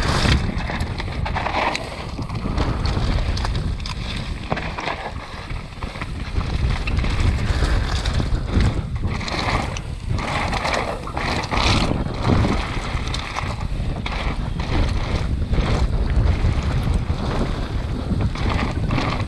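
Wind buffeting the camera microphone over the rumble of mountain bike tyres rolling fast over loose slate and gravel, with frequent knocks and rattles from the bike on the rough ground.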